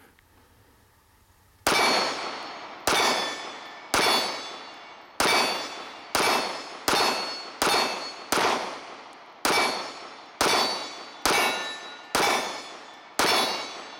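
Mossberg MC2c 9mm pistol fired in a steady string of about thirteen shots, roughly one a second, starting nearly two seconds in. Nearly every shot is followed by the ringing clang of a hit steel target.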